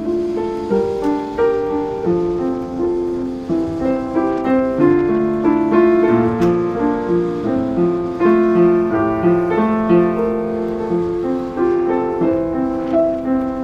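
Background piano music: a steady flow of single notes and chords, each struck and fading.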